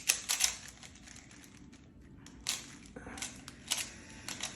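Plastic Rubik's cubes being turned fast by hand: irregular clusters of clicking and clacking as the layers snap round, with a lull of about a second partway through.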